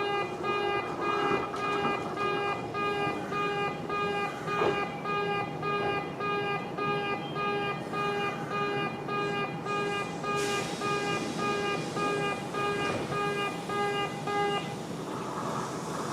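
In-station railway level crossing alarm on the Kintetsu Osaka Line, repeating a buzzy electronic 'pee-pee' tone about twice a second; the alarm stops near the end. A rushing noise joins about ten seconds in.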